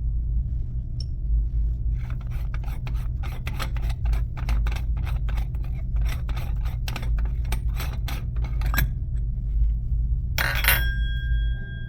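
Metal scraping and clicking as the chrome parts of a Zurn commercial flush valve are worked loose and handled, over a steady low hum. About ten seconds in, one loud metal clank rings on briefly.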